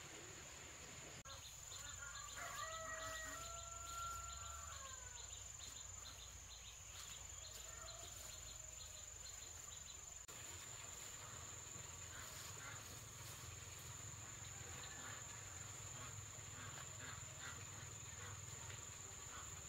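Insects buzzing steadily on one high note, with a rhythmic chirping over the first half. A rooster crows once, about two seconds in.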